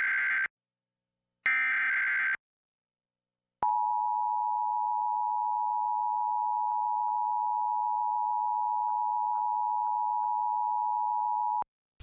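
Emergency Alert System SAME header: the end of one burst of warbling data tones, then a second burst about a second and a half in. After a second of silence the two-tone EAS attention signal sounds steadily for about eight seconds and cuts off suddenly, marking the start of a required monthly test.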